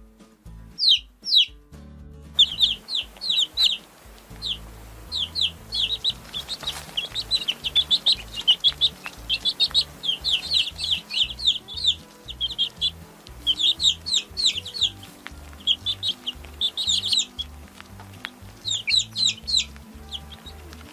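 Baby chicks peeping: many short, high, falling notes from several chicks at once. A few calls at first, then dense, continuous peeping from about two seconds in, with brief lulls.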